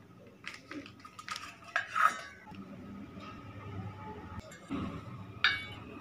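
Metal kitchenware clinking and knocking, a handful of sharp clinks with a short ring. The loudest comes about two seconds in and another near the end.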